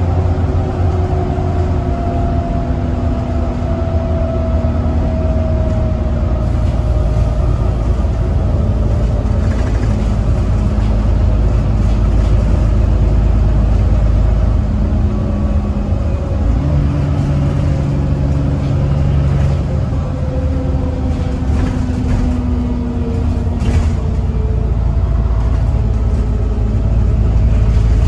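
VDL DB300 double-decker bus heard from inside its passenger saloon while under way: a steady low engine and drivetrain rumble with a whining tone that slides down in pitch as the bus eases off, then shifts and rises again as it picks up speed. A few faint rattles come through over it.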